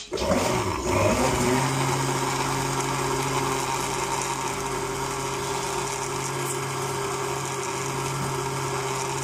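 Countertop blender starting up, its motor whine rising in pitch over the first second and a half, then running steadily while it purées carrots, banana and milk.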